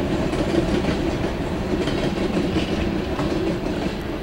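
Empty coal cars of a freight train rolling past on the rails: a steady rumble with the clack of steel wheels over the track, easing slightly near the end.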